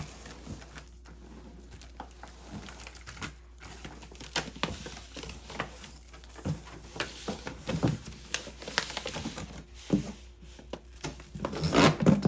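Handling noises from unboxing a cordless vacuum cleaner: irregular clicks, knocks and light rustling as its plastic parts and packaging are moved, with a quick cluster of louder knocks near the end.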